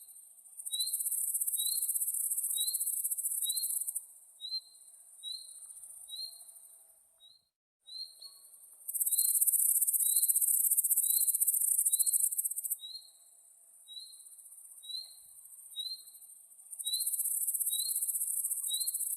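Insects trilling in a high, hissing chorus that swells loud in three long waves and fades back between them. A short high chirp repeats steadily underneath, about one and a half times a second.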